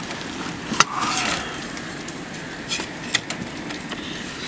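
Hurricane wind and rain as a steady rushing noise, broken by a few sharp cracks, the loudest about a second in.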